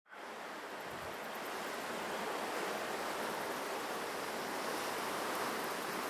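Steady rushing sound of sea surf, fading in at the very start.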